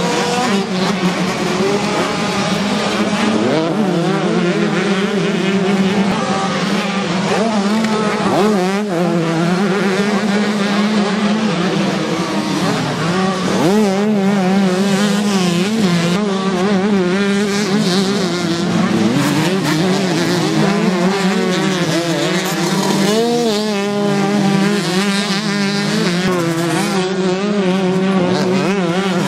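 Several 125cc two-stroke motocross bikes racing, their engines revving hard, with several overlapping engine notes that keep rising and falling as the riders throttle on and off.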